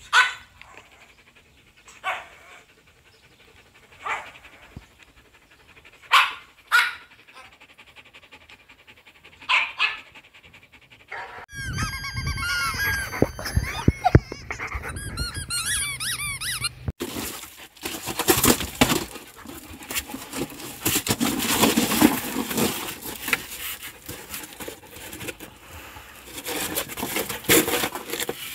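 A dog gives short single barks every couple of seconds, then comes a few seconds of high squeaking, then a long stretch of rustling and tearing as a German Shepherd chews and rips a cardboard box.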